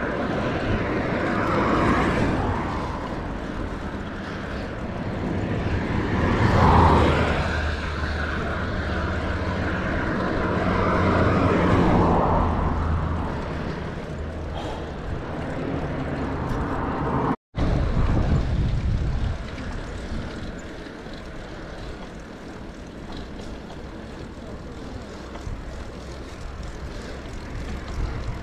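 Wind and road noise rushing over an action camera's microphone during a bicycle ride, swelling and fading three times in the first half. It cuts out suddenly for a moment about two-thirds through, then carries on more softly.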